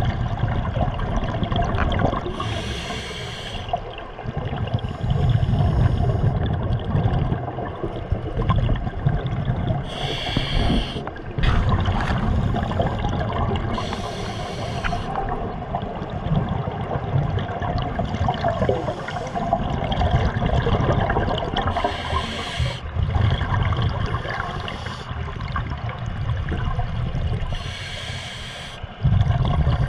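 Scuba diver breathing through a regulator underwater: a short hissing inhale every four to eight seconds, each followed by the low bubbling rumble of exhaled air.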